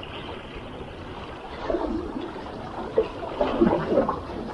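Calm sea water lapping and sloshing against shoreline rocks, with louder irregular splashes about two seconds in and again between three and four seconds.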